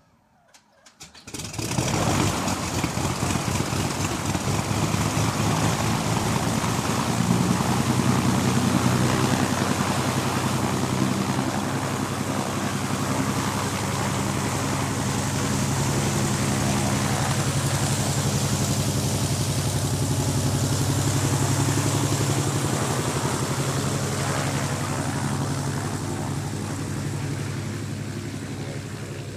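Cessna floatplane's piston engine and propeller coming to life with a few uneven strokes about a second in, then running steadily, easing off slowly near the end.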